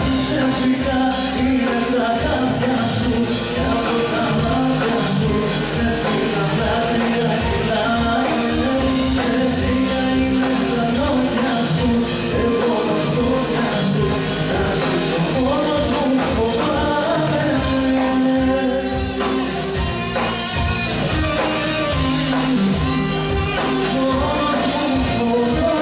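Live band with drums and a male singer performing an amplified pop song with a steady beat.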